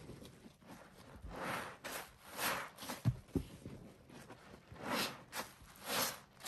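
Soapy sponges being squeezed in rubber-gloved hands in a tub of foamy pine-cleaner paste: several wet, sudsy squeezes that swell and fade, with a couple of soft knocks about three seconds in.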